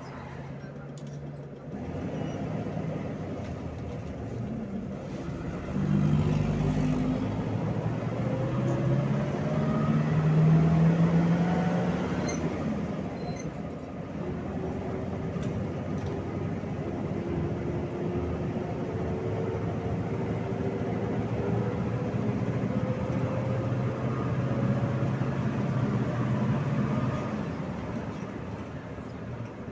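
Engine of a PAZ 32054 bus, converted to run on gas, heard from inside the cabin. It idles, then pulls away about six seconds in and accelerates through the gears, its note climbing, dropping back at a shift about halfway, then climbing again.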